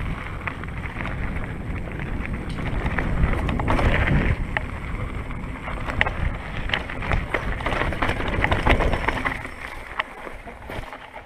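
Mountain bike riding down a steep, rough trail: a low rumble of wind and tyre noise with many sharp knocks and rattles from the bike, easing off near the end.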